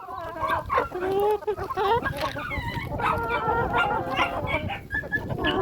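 Several domestic fowl calling over one another in quick, short calls.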